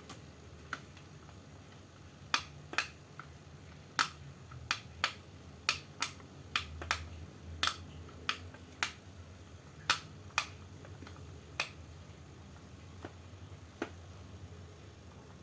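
A series of sharp, irregularly spaced clicks or taps, closely bunched through the middle of the stretch and thinning out towards the end.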